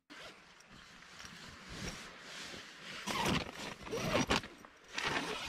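Tent door zipper being pulled open in several long pulls, loudest in the second half, with the nylon tent fabric rustling.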